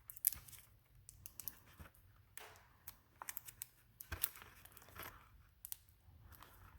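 Faint, scattered crinkling, small tearing sounds and clicks: the sticky rubber plug strips and tool of a tire plug kit being handled.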